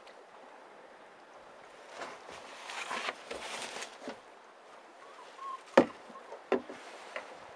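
A hooked pollack splashing at the surface as it is lifted out by the line, then a few sharp knocks as the fish hits the side of the boat, the first knock the loudest.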